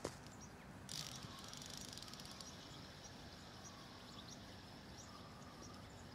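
Faint outdoor dusk ambience: insects keep up a steady high trill, with scattered short high chirps over it. The trill sets in about a second in.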